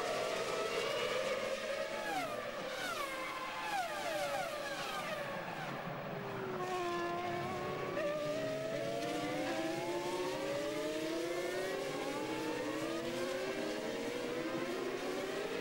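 A pack of 2001 Formula One cars with 3.0-litre V10 engines running together. Several engine notes fall in pitch over a few seconds as the cars slow for the corner, then climb again from about halfway as they accelerate away.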